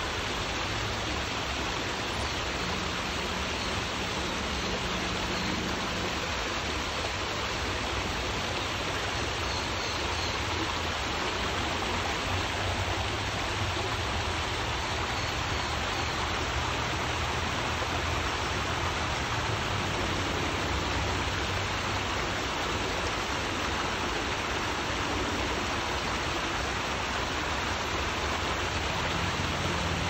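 Small waterfall with water pouring and splashing over rocks, a steady rush.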